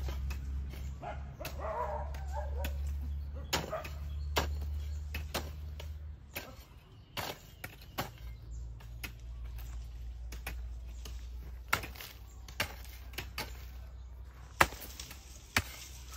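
Scattered, irregular knocks and taps over a steady low hum that changes about six seconds in.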